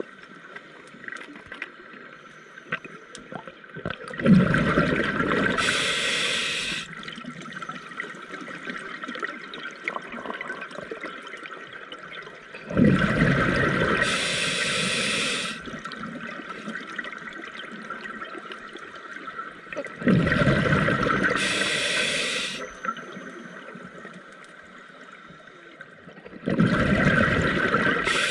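Scuba diver breathing out through a regulator: four gushes of exhaust bubbles, one about every seven seconds, each lasting a couple of seconds and turning to a bright fizz near its end. Quieter stretches lie between them.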